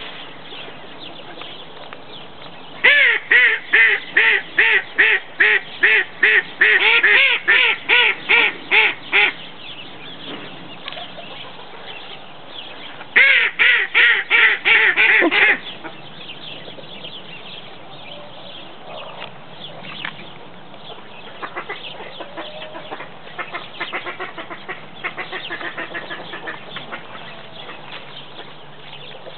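Domestic ducks quacking in two loud runs of rapid calls, about two a second, starting a few seconds in and again near the middle. Softer, scattered short calls from the poultry follow in the second half.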